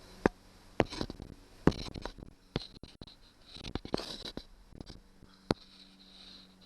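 Irregular sharp clicks and knocks with light scraping, from hand-fitting a fishfinder transducer and its mounting bracket.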